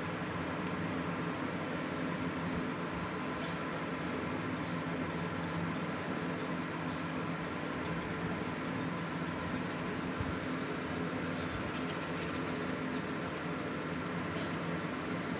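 A brush scrubbing the wet, rusty steel blade of an old chisel, becoming a fast, continuous scratching about halfway through. A steady electrical hum runs underneath.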